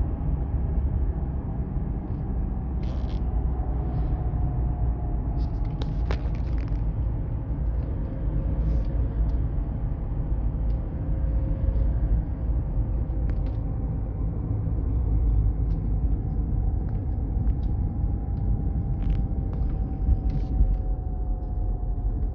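Car driving with steady road rumble and a whining tone over it that slowly drifts up and down in pitch. The differential has been checked and is not the cause of the whine.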